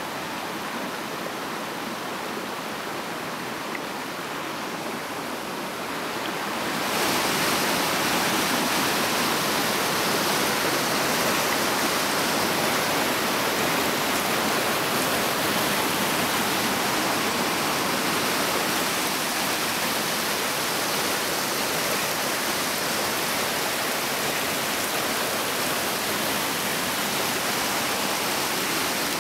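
Water rushing over rocks in a small stream cascade: a steady noise that grows louder and fuller about seven seconds in, then holds.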